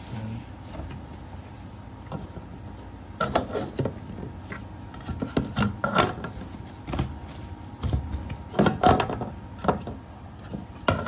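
Hands handling a kayak's plastic deck hatch and the fabric dry-storage bag inside it: irregular knocks, clicks and rustles, starting about three seconds in.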